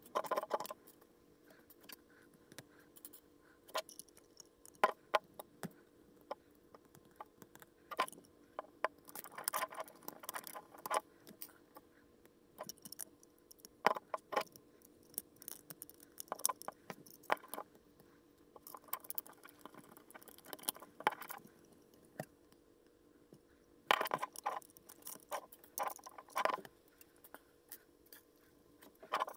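Plastic LEGO pieces clicking, tapping and rattling as they are handled and pressed together, in irregular bursts with short pauses between.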